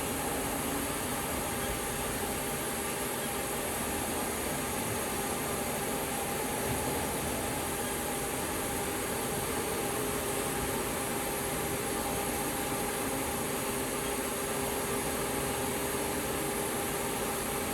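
Haas HL-6 CNC lathe running: a steady mechanical hum with a few steady whine tones over an even noise.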